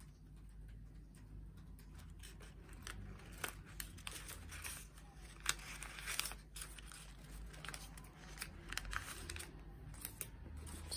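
Folded origami paper units rustling and crinkling as they are handled and pushed together into a modular kusudama, with scattered short crackles.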